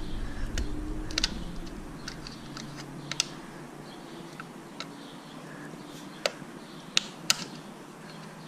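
Light, sharp plastic clicks and taps at irregular intervals, about eight in all, as a snap-on plastic hinge cover is worked over a car door hinge.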